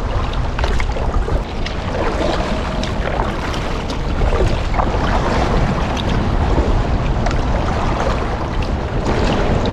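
A kayak being paddled through rain: water splashing with many small patters and ticks, over steady wind noise rumbling on the microphone.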